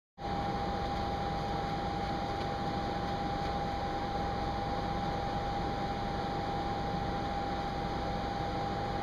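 Steady hiss of background room noise with one constant high-pitched hum running through it, starting abruptly just after the start. No ball touches or footsteps stand out.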